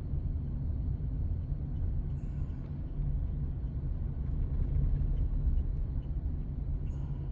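Steady low rumble of a vehicle's engine and tyres heard from inside the cab while driving along a field.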